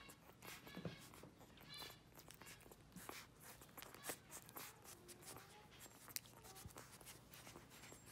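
Newborn golden retriever puppies nursing: faint wet suckling clicks and smacks, with a brief high squeak about two seconds in and soft wavering whimpers around the middle.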